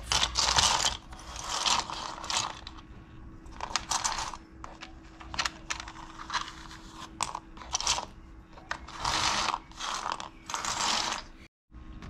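Loose plastic keyboard keycaps clattering and scraping together as they are handled and set onto a pile, in a string of short rustling clatters.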